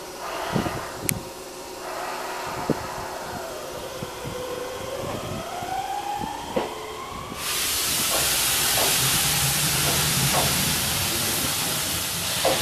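Enshu Railway electric train pulling away, its traction motor whine dipping and then climbing steadily in pitch as it gathers speed, with clicks of the wheels over rail joints. About seven seconds in, a loud steady hiss starts abruptly and drowns the rest.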